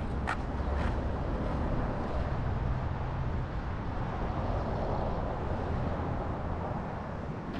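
Skateboard wheels rolling over rough asphalt, a steady rumble, with road traffic behind it. Two light clicks come in the first second.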